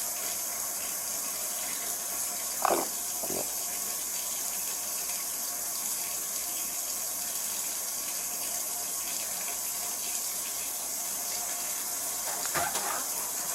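Steady rushing hiss of running water, with two brief faint sounds, one a few seconds in and one near the end.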